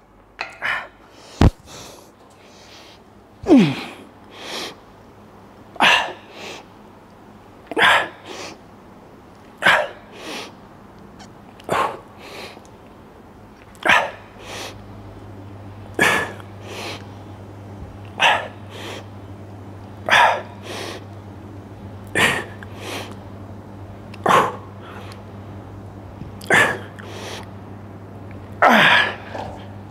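A man breathing hard and forcefully through a set of triceps dips. Each rep brings a sharp, loud breath followed by a smaller one, about every two seconds, thirteen or so times. A single knock sounds about a second and a half in.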